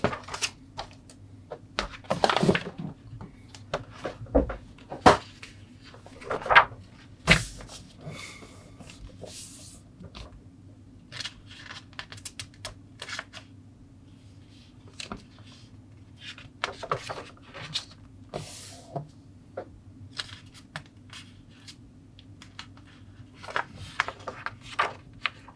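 Plastic model kit parts being handled: irregular light clicks and knocks of plastic sprues, with short rustles, over a faint steady low hum.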